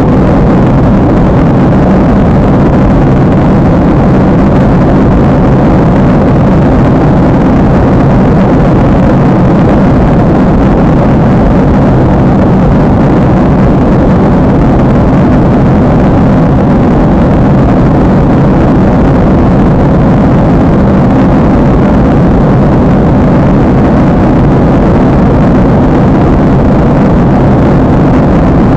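Loud, steady jet-engine and airflow noise heard from inside an airliner cabin.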